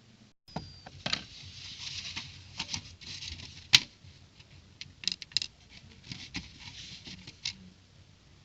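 Plastic building-brick pieces being handled, giving a run of light clicks and rustling, with one sharp click a little under four seconds in.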